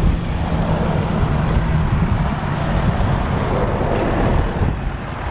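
Wind buffeting the microphone of a camera on a road bike riding at about 16 km/h, mixed with the steady noise of motor traffic on the road; a low engine hum fades out about two seconds in.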